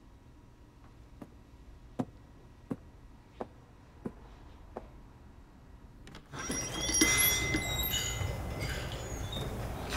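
Six light, evenly spaced taps, about one every 0.7 seconds. Then, about six seconds in, a sudden louder clatter of dishes and glassware clinking over a busy room hum.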